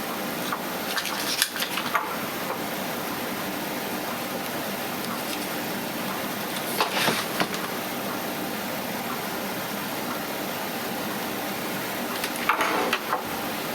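Small rubber bumpers being pressed into a laptop's plastic screen bezel by hand: three short bursts of scraping and tapping, about a second in, halfway through and near the end, over a steady background hiss.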